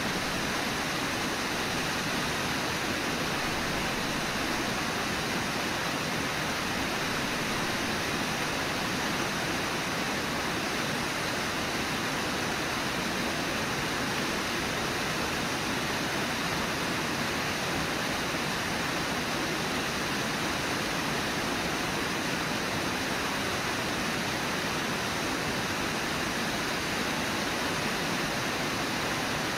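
Steady rush of flowing river water at the Brooks Falls site: an even, unbroken noise with nothing else standing out.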